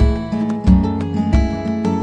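Background music with a steady beat, a low pulse about every two-thirds of a second under sustained melodic notes.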